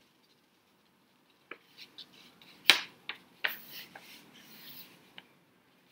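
A sheet of paper being handled and folded: a few sharp crackles and crinkles, the loudest a little under three seconds in, then soft rustling.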